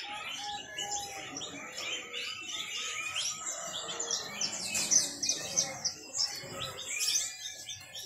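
Many caged male canaries singing at once, a dense chorus of fast overlapping chirps and trills. The full, continuous song marks them as gacor: birds in top singing form, ready for sale.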